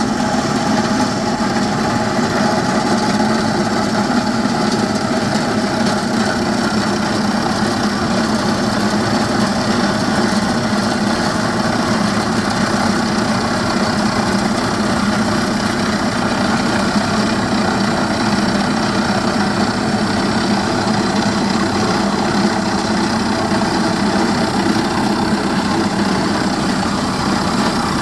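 Rock drilling rig running steadily, its engine and drilling making one continuous loud mechanical noise.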